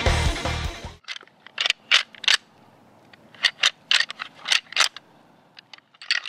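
Rock music ends abruptly about a second in. Then comes a pair of rattling antlers knocked and ground together in irregular sharp clacks, two or three a second in short clusters, imitating sparring bucks to draw in a rutting buck.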